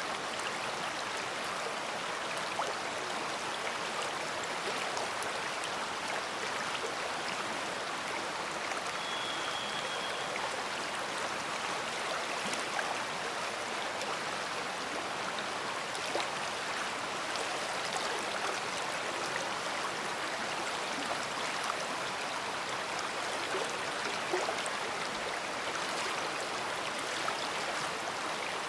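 A big river flowing: a steady rush of water with small splashes and gurgles scattered through it.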